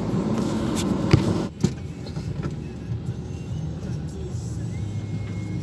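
A sharp click from the plastic phone-holder clamp being handled. After that, the steady low rumble of a car driving, heard from inside the cabin.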